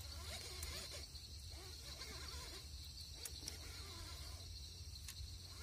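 Night insects, crickets among them, making a steady high-pitched chirring, over a low steady rumble and a few faint ticks.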